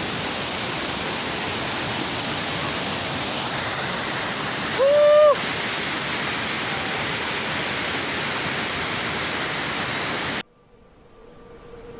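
Waterfall rushing steadily, a loud even noise of falling water. About five seconds in, a short pitched voice-like call rises over it. Near the end the water sound cuts off abruptly into near quiet, and faint music begins.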